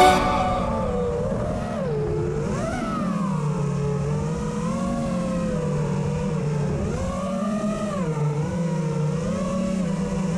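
FPV freestyle quadcopter's electric motors whining in flight, the pitch rising and falling every few seconds as the throttle changes.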